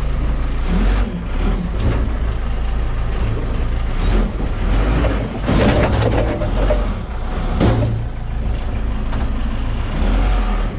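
Backhoe's diesel engine running steadily under load, with harsher scraping and straining noise around the middle as its bucket tooth works at the steel fence.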